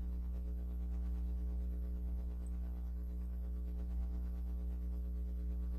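Steady low electrical hum, a single buzzing tone with many evenly spaced overtones that does not change.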